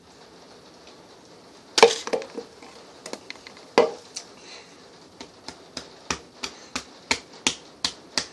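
Two sharp knocks, then a steady run of quick taps, about three a second, growing louder toward the end.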